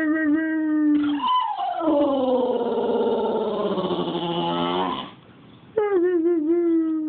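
English bulldog howling three times: a short steady howl, a long howl that slides down in pitch, and a wavering howl near the end.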